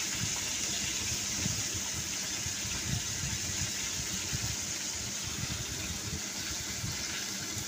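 Fish pieces frying in hot oil in a black kadai: a steady sizzle, with a low, uneven rumble beneath it.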